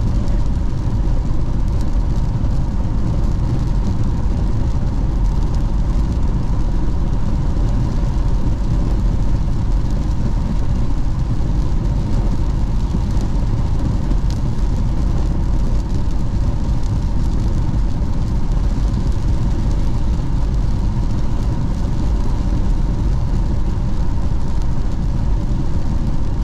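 Steady road noise from inside a car driving at highway speed on a wet road: an even low rumble of tyres and engine.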